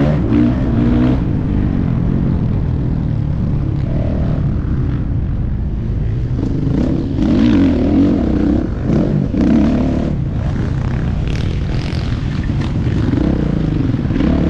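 Motocross dirt bike engine revving up and down over and over as it is ridden hard around the track, the pitch rising and dropping every second or two.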